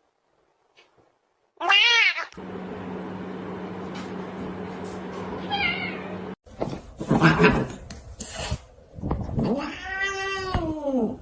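Cats meowing: a short meow about two seconds in, and a long drawn-out meow that rises then falls near the end, with a steady hum and a faint high mew between them.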